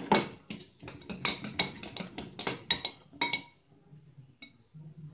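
Spoon clinking and scraping against a glass bowl of oatmeal while it is eaten: a quick run of sharp, ringing clinks, then a last single clink about a second later.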